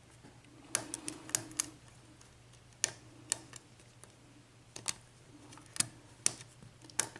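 Lock pick working the pins of a six-pin brass padlock under tension: small sharp metal clicks, a quick cluster about a second in, then single clicks every second or so.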